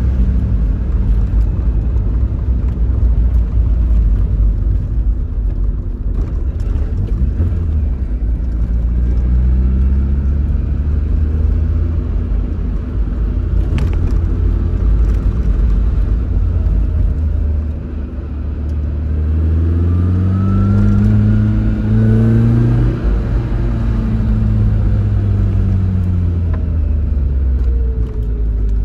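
Tofaş Doğan SLX engine and exhaust, driven hard and revving up and down repeatedly. The revs climb to a peak a little after the middle, drop suddenly, then fall away near the end.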